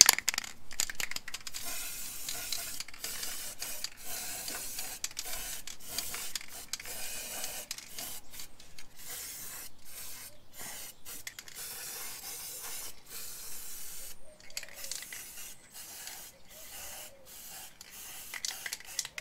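Aerosol can of protective wax hissing as it is sprayed over bolt heads and fastener surfaces, in many short spurts with brief breaks between them.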